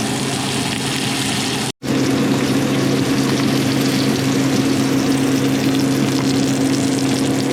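A motor or engine running steadily, a low even hum with a hiss over it. The sound cuts out abruptly for an instant about two seconds in, then resumes unchanged.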